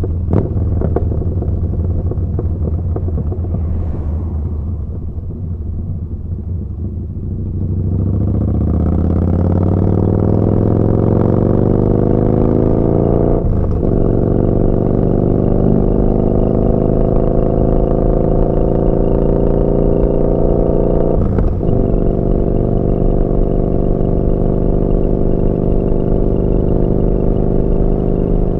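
Yamaha Bolt's air-cooled V-twin through a Vance & Hines slip-on exhaust, running at low revs for the first several seconds, then accelerating with rising pitch from about eight seconds in. Two brief breaks mark upshifts, after which it settles into steady cruising.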